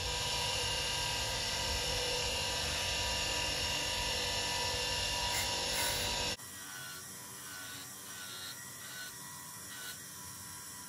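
Small bench grinder running with an abrasive wheel while the edge of a plastic knife sheath is pressed against it, a steady high whir with rubbing. About six seconds in the sound suddenly drops to a quieter whir with light, uneven rubbing as the sheath is worked along the wheel.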